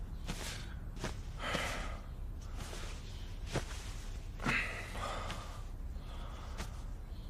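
A man sighing and breathing heavily several times, in short breathy exhalations, as he turns over restlessly in bed, with a few sharp clicks and a steady low hum underneath.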